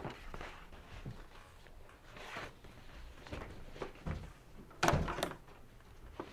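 Small clicks and rustles of paper pages in a file folder being handled, then a louder pair of knocks about five seconds in from an office door being opened.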